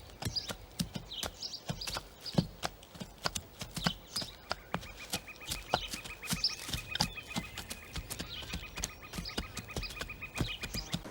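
Irregular sharp knocks and clicks, like hoofbeats on hard ground, with short high chirps recurring about once a second. A steady high tone joins about halfway through.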